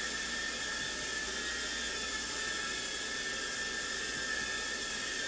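JJRC H56 TaiChi mini quadcopter's small motors and propellers whining steadily in flight, a high tone over a hiss.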